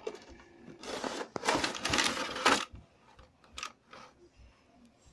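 A cardboard toy box being opened and a clear plastic tray of wooden miniature furniture slid out, making a rustling scrape for about a second and a half, then a single light click.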